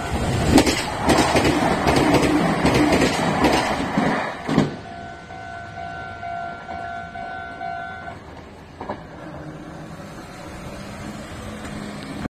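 Meitetsu express train passing through a level crossing, a loud rumble with sharp clicks of wheels over rail joints that ends about four and a half seconds in. The crossing's electronic warning bell keeps dinging behind it, then stops about eight seconds in as the crossing clears.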